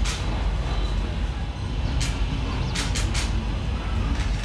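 A steady low rumble with a few short, sharp hissing clicks: one at the start, one about two seconds in, and three close together around three seconds.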